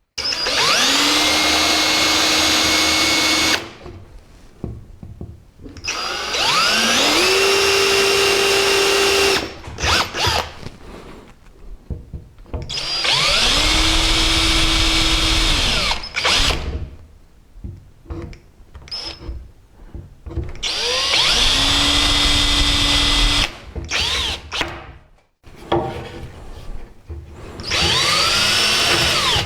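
Electric drill with a 5 mm bit drilling handle screw holes through a kitchen cupboard door, in five separate runs of about three seconds each. Each run spins up to a steady whine and then winds down, with short pauses between holes.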